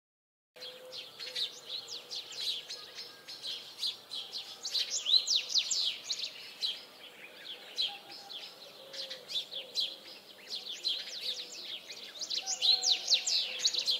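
Many small birds chirping and twittering together in a dense, overlapping chorus of quick high calls, with a faint steady tone underneath. It begins about half a second in, out of silence.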